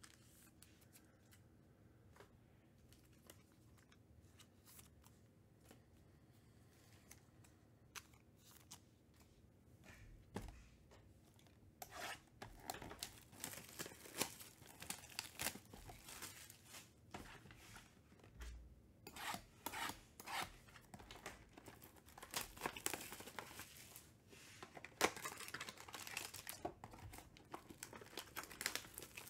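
Cardboard trading-card box being torn open by hand, then its plastic wrapping crinkled, in a run of tearing and crackling rustles that starts about twelve seconds in. Before that, only a few faint handling clicks.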